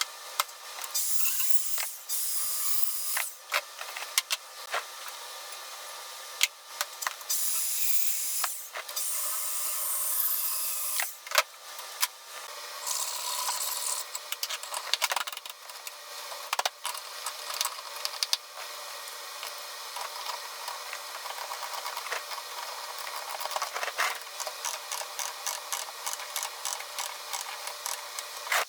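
Hand work on a steel pipe clamped in a vise: scattered metal clicks and rattles with stretches of hissing scrape, then a run of quick, even ticks over the last several seconds.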